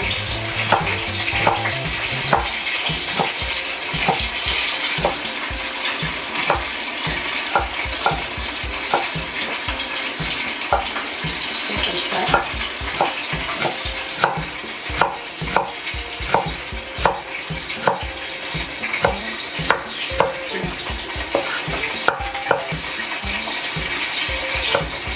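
Kitchen knife cutting taro into small cubes on a wooden cutting board: irregular knocks of the blade on the wood, about once or twice a second, over a steady hiss in the background.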